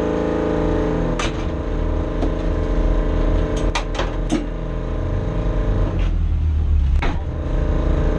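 Renault Clio Cup race car's engine idling steadily, heard from inside the stripped cabin as a low rumble, with several sharp clicks and knocks from someone working in the cockpit, a cluster of them near the middle.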